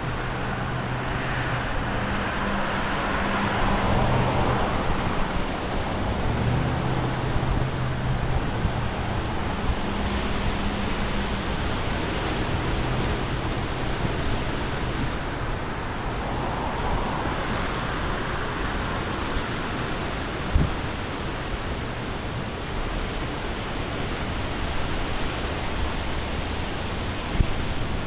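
Heavy ocean surf breaking on rocks: a steady rushing roar that swells twice as bigger waves crash. A low steady hum runs under it in the first half, and there are two brief thumps near the end.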